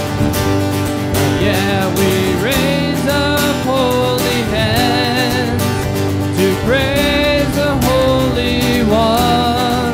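A man singing a slow worship song over a strummed acoustic guitar, the strumming steady and his sung lines sliding between notes.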